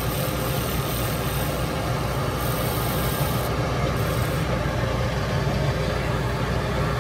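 A 1941 metal lathe running steadily with an even machine hum. A faint high hiss drops away about three and a half seconds in.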